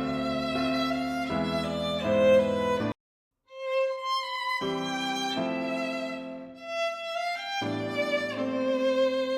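Background instrumental music led by a violin melody. It cuts out completely for about half a second roughly three seconds in, then comes back in.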